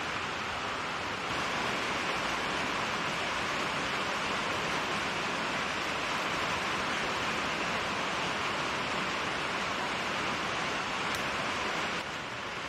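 Rain falling steadily on a metal roof, an even hiss that steps up a little about a second in and eases slightly near the end.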